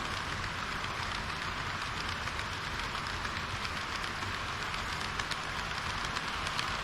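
HO-gauge model train running along the track: a steady rushing hiss from the wheels and motor, with short sharp clicks that come more often in the second half.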